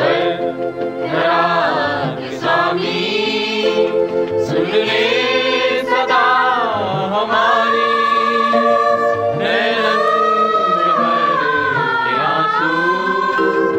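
Christian devotional song sung by a choir with musical backing, the voices holding long notes and sliding between them.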